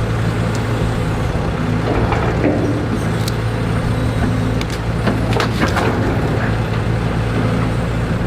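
Diesel engine of heavy equipment running steadily at a constant speed, with a few brief higher squeaks or clanks about five to six seconds in.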